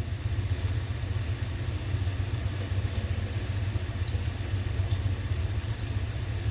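Steady low roar of shop cooler fans running full blast, with a few faint small clicks over it.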